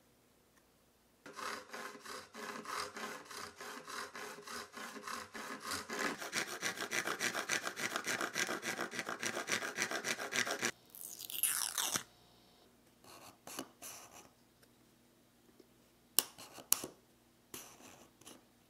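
A fine-toothed hand saw cutting a thin wooden board with steady back-and-forth strokes, about two a second at first and quicker from about halfway. It ends in a brief scraping flourish, followed by a few short scrapes and two sharp clicks near the end.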